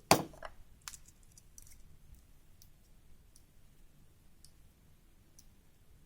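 Scissors trimming a thin strip of aluminium soda-can sheet: one sharp snip right at the start, then a few faint, scattered clicks about a second apart.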